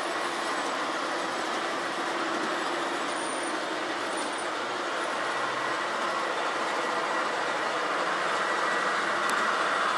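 G scale model freight train rolling along its track: a steady rolling rumble of wheels on rails, getting a little louder near the end.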